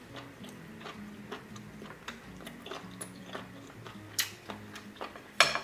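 Close-miked chewing of seafood stew: soft wet mouth clicks and smacks. A sharper click comes about four seconds in, and a short, louder noisy sound follows near the end.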